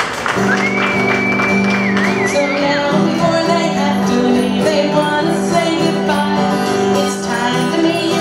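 Live music played in a large hall: singing over acoustic guitar with steady held chords. About half a second in, a high clear note comes in, is held for about two seconds, then warbles and drops away.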